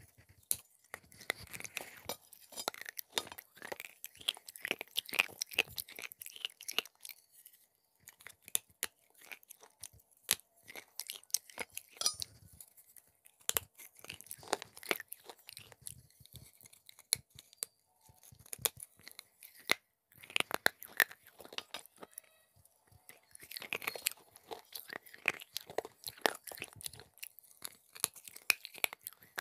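Crisp crunching and chewing of shards of broken baked-clay pot coated in white cheese, picked up close on a lapel mic. The bites and chews come in bursts with short pauses between them.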